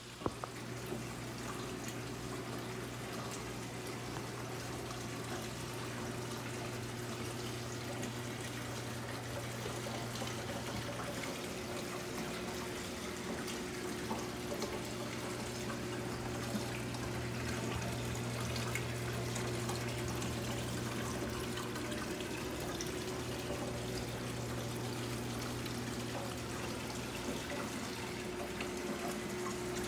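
Water trickling and dripping through the PVC pipe columns of a vertical hydroponic garden, with a low steady hum underneath.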